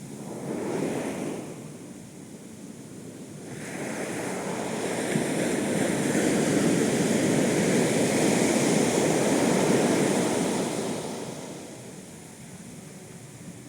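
Ocean surf breaking on a beach. A short wash comes about a second in, then a bigger wave builds over a few seconds, stays loud for several more and fades away.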